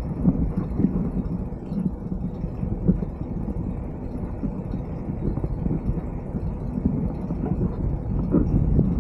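Uneven low rumble of wind buffeting the microphone while riding a bicycle, mixed with the bike's tyre and road noise.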